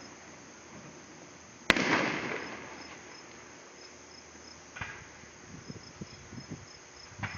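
Fireworks: one sharp bang about two seconds in, rumbling away over a second or so, a smaller pop near five seconds with a few low thumps after it, and another sharp bang at the very end. Crickets chirp faintly underneath.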